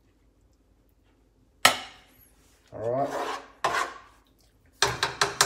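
A serving scooper scraping and knocking against a metal frying pan as pork mince is scooped out of it. There is a sharp clank about one and a half seconds in, then two scraping strokes, then a quick run of clinks near the end.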